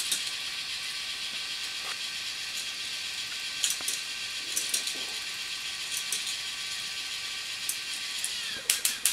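K'NEX roller coaster's battery motor driving the plastic chain lift: a steady whine with a rattling chain and scattered ratchet-like clicks. Near the end the whine drops in pitch and a few sharp clacks follow.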